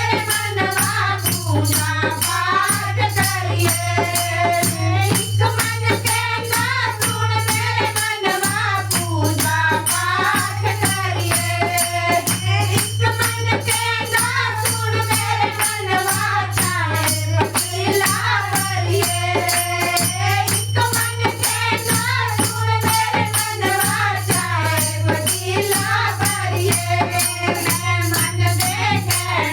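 Voices singing a Hindi devotional bhajan over a fast, steady beat of shaken and struck rattling percussion, with a steady low hum underneath.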